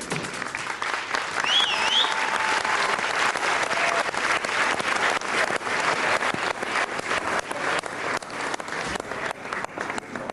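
Studio audience applauding, with a high rising-and-falling whistle about one and a half seconds in; the applause thins out near the end.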